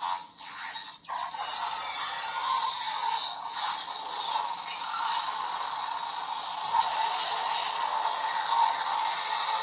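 Electronic sound effects from a Bandai premium DX Kamen Rider transformation-belt toy playing through its small speaker: a few short sounds in the first second, then a continuous noisy effect with a rising sweep a few seconds in.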